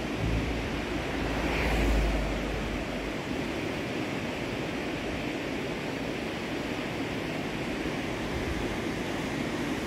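Steady rush of a fast mountain river. Wind buffets the microphone in the first few seconds.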